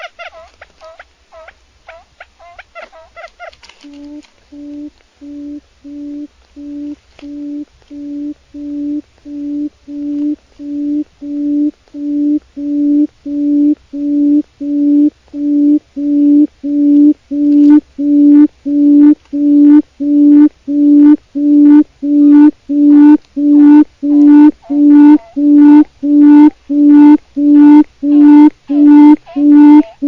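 Quail calling: a few seconds of quick, higher chattering notes, then a long series of low, even hooting notes, about one and a half a second, that grows steadily louder.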